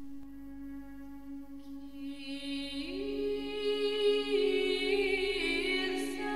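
Background music of slow sung chant over a steady held drone note. A voice part glides up and enters about three seconds in, and the singing grows louder with long sustained notes.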